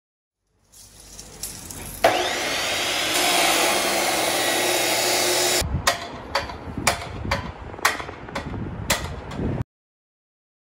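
A power tool runs steadily for a few seconds with a high whine, then stops. A string of about ten sharp, irregular knocks follows, and the sound cuts off abruptly.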